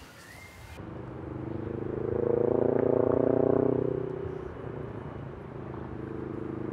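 A low droning hum of several steady pitched tones that swells to its loudest about three seconds in, then eases back to a quieter, steady drone.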